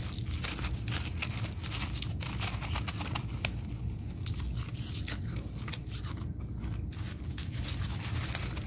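Fresh freezer frost crunching and crackling in quick, dense clicks as a plastic-gloved hand presses into it and scoops it from a bowl.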